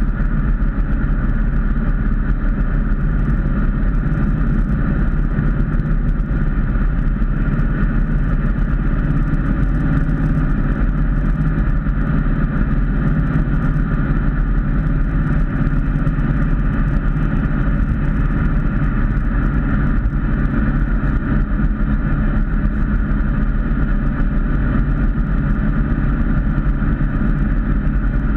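Ford Mustang cruising at highway speed, heard from inside the cabin: a steady engine and exhaust drone with tyre and road noise, holding an even pitch with no revving.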